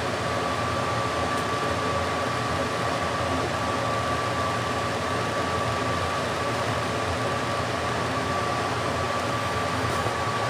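Steady, even hiss like a running fan, with a thin steady whine held over it.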